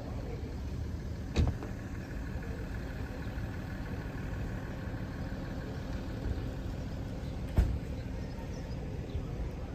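Steady low rumble of a running vehicle, with two short sharp knocks, one about a second and a half in and one about three quarters of the way through.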